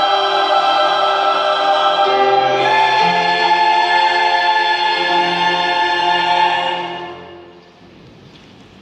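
Combined choir singing the final held chords of an anthem. The chord changes once, about two to three seconds in, then the choir releases and the sound fades into the room about seven seconds in.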